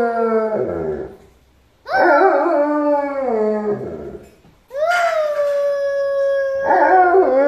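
Alaskan Malamute howling: a few long, drawn-out howls that slide down in pitch at the end, with short breaks between, while a girl howls along with it.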